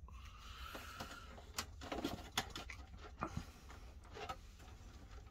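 Scattered light clicks and taps of a screwdriver and wires being handled against a metal electrical enclosure.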